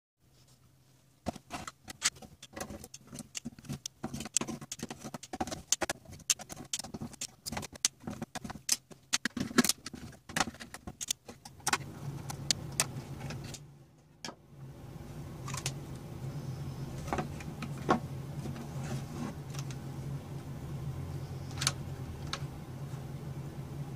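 Small clicks and clatter from a GeForce 9800 GTX+ graphics card being taken apart by hand, as a screwdriver works the metal screws and small parts and the cooler shroud rattle. The clicks come thick and fast for about the first eleven seconds, then turn sparse over a steady low hum.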